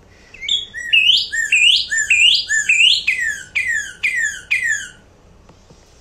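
Northern cardinal song: a run of about five clear upslurred whistles followed by about five downslurred whistles, the phrase some hear as 'birdie, birdie'.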